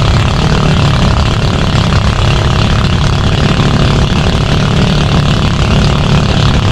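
Fishing bangka's engine running steadily and loud.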